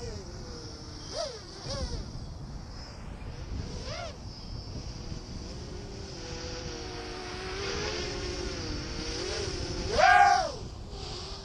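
Small FPV quadcopter's electric motors and propellers whining, the pitch rising and falling as the throttle is worked, with several short throttle blips and one loud punch of throttle near the end.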